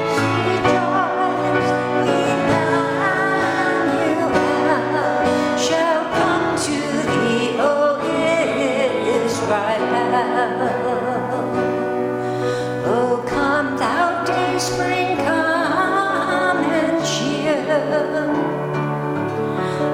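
Live worship music in a church: voices singing a slow hymn-like melody over sustained instrumental accompaniment.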